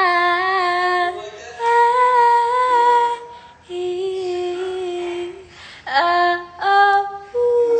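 A woman singing a series of long held notes without words, each about a second long, the pitch stepping up and down from note to note.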